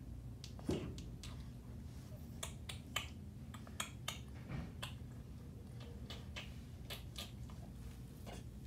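Irregular light clicks and taps, a couple of dozen over several seconds, with one louder knock about a second in.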